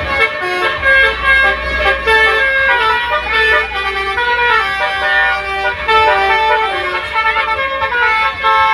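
Telolet horn, the multi-tone musical horn of Indonesian buses and trucks, playing a tune of held notes that step from one pitch to the next, over a steady low rumble.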